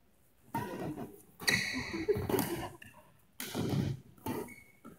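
Badminton rally on an indoor court: sharp racket-on-shuttlecock hits about a second apart, with athletic shoes squeaking on the court floor.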